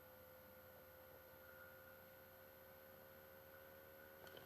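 Near silence: room tone with a faint steady electrical whine.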